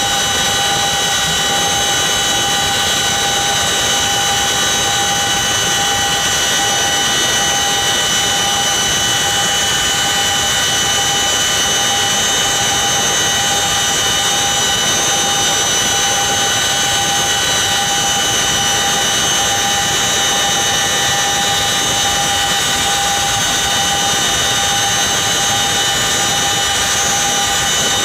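Cabin noise of a CH-47 Chinook tandem-rotor helicopter, heard from inside with the rear ramp open as it climbs out after takeoff: its twin turboshaft engines and drive train hold several steady high whines over a constant loud rush of rotor and air noise.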